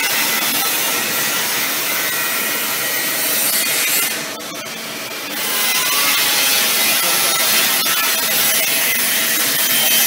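3-axis CNC milling machine running with its axes driving back to the home position: a steady rushing, rubbing mechanical noise that breaks off for about a second some four seconds in, then starts again.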